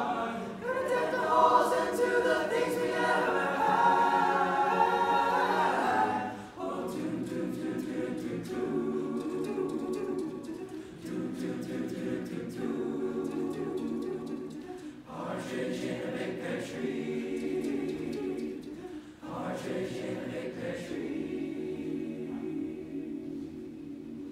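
Boys' choir singing a cappella: a loud passage, then from about six seconds in, softer low sustained chords that fade toward the end.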